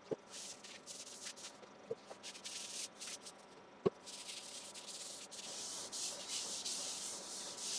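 Paper towel rubbing sanding sealer onto the surface of a dyed sycamore bowl: a scratchy hiss in short wiping strokes at first, turning into steadier rubbing from about halfway. A single sharp click comes just before the steady rubbing starts.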